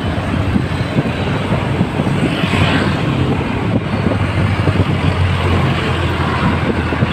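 Steady rumble of motorcycle and car traffic heard from a moving bicycle, mixed with wind buffeting on the microphone. A brief swell of hiss comes about two and a half seconds in.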